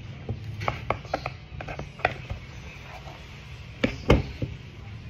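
Irregular clicks and knocks of a product and its packaging being handled, with a louder double knock about four seconds in, over a low steady hum.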